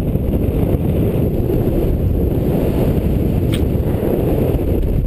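Wind noise on the microphone of a paraglider pilot's GoPro in flight: a steady, loud, low rush of airflow buffeting the camera.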